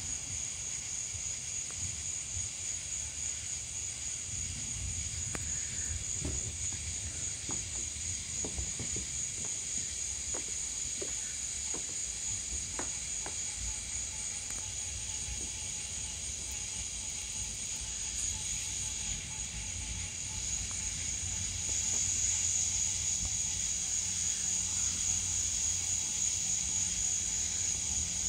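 Night insects, crickets among them, trilling in a steady, high-pitched chorus over a low rumble, growing a little louder near the end.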